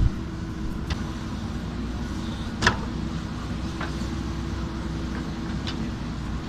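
JCB backhoe loader's diesel engine running steadily, with a few sharp knocks, the loudest about two and a half seconds in.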